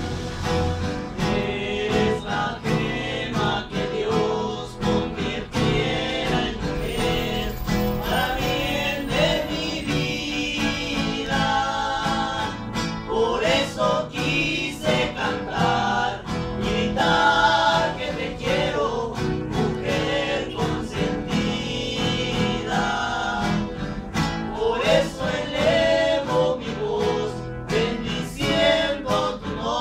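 Four acoustic guitars strummed and plucked together while several young men's voices sing along together.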